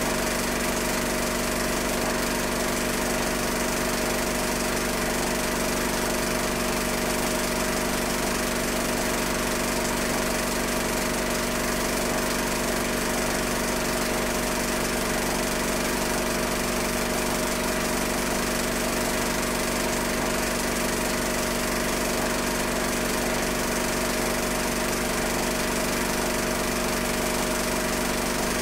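A steady mechanical hum and whir with several fixed pitches, unchanging in level or pitch throughout, even across a cut in the picture.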